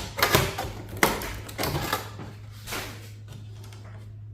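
Clicks and clunks of metal and plastic server parts being pried and knocked by hand, several in the first three seconds, then stopping. A steady low hum runs underneath.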